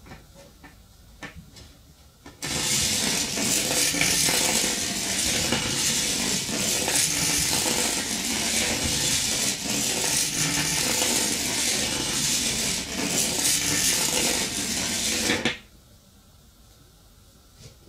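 Magnet-and-battery 'electric train' running through a coil of bare copper wire: the magnets scrape and rattle against the copper turns in a loud, steady metallic rattle. It starts suddenly about two seconds in, after a few light clicks as the battery is put in, and stops abruptly as the train leaves the coil.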